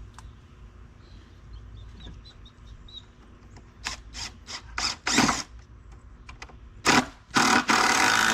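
A cordless drill drives screws into pallet wood in short bursts, then in a longer run near the end.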